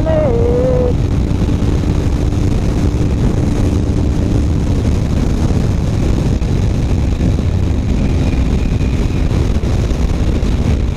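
Kawasaki Ninja 250R's parallel-twin engine running at a steady cruise, mostly buried under a loud, steady rumble of wind noise on the microphone.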